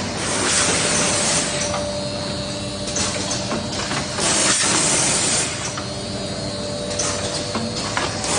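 Automatic ketchup packing machine running: a steady machine hum with scattered clicks, and a hiss lasting about a second that comes back roughly every four seconds, near the start, about halfway and at the end.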